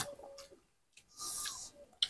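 A man's breath and mouth sounds while eating: a short mouth click at the start, then a hissing breath about a second in that lasts about half a second.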